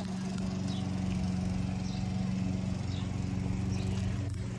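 A motor runs with a steady, even hum, with small birds chirping briefly every second or so.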